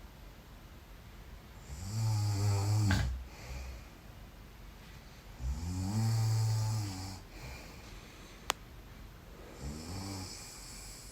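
A sleeping person snoring: three snores about four seconds apart, the last one shorter and quieter. A single short click comes between the second and third snores.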